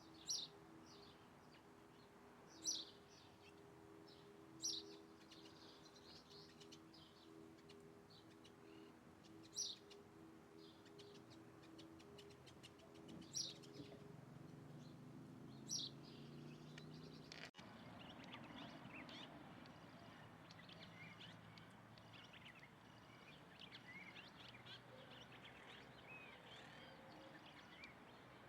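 Birds calling: a loud, short, high chirp repeated six times, two to five seconds apart, over a faint steady hum. After a sudden change about seventeen seconds in, a softer background of many small birds chirping.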